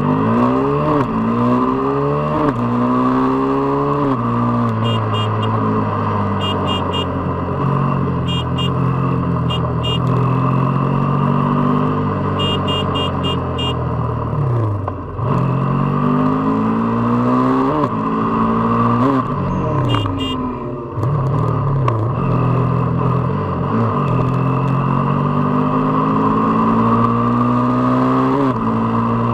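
KTM RC 390 single-cylinder engine and exhaust accelerating hard through the gears: the revs climb and drop back at each upshift, easing off briefly twice before pulling up through the gears again.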